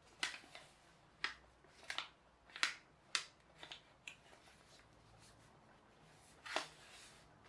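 A sheet of paper being folded and creased by hand, giving short crisp crackles: about six in the first four seconds and one more near the end.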